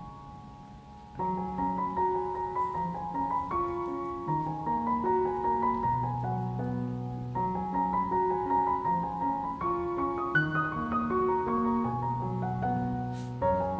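Background piano music: a gentle melody of held notes over a bass line, fuller from about a second in.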